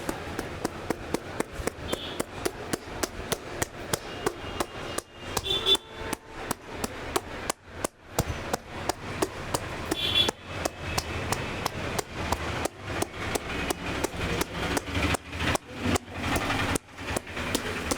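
A barber's hands striking in a rapid, rhythmic percussive head massage, about three to four sharp slaps a second, with a few brief pauses.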